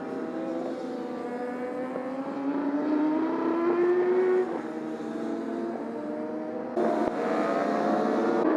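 Several endurance racing motorcycle engines running hard, their pitch slowly climbing as they accelerate. The sound shifts abruptly twice, about halfway and near the end.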